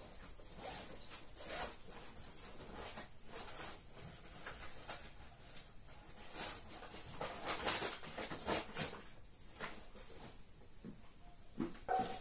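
Backpack zipper being zipped and unzipped, with fabric rustling as the bag is handled and packed: a string of quick scraping strokes, loudest about seven to nine seconds in.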